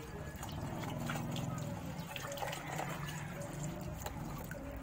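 Water scooped from a basin with a plastic dipper and poured over a wet dog, splashing and trickling back into the soapy water.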